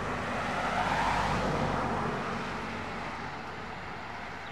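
A motor vehicle passing by, its engine and road noise swelling about a second in and then fading away.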